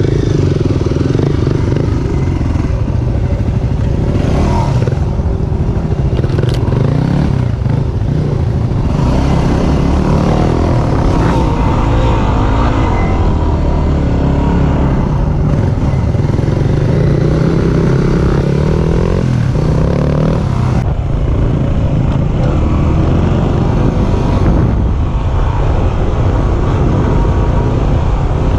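Yamaha WR250R dual-sport motorcycle's single-cylinder four-stroke engine running under way, heard close from the rider's helmet, its revs rising and falling with the throttle.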